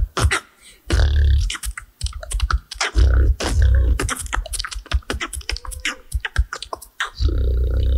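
A young beatboxer performing solo into a microphone: rapid mouth clicks and hi-hat and snare sounds over deep bass kicks, with a long held bass note near the end.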